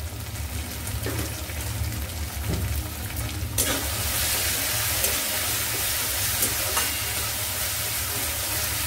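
Sauced vegetables sizzling in a steel wok while a metal spatula stirs them, scraping against the pan now and then. The sizzle grows louder about three and a half seconds in.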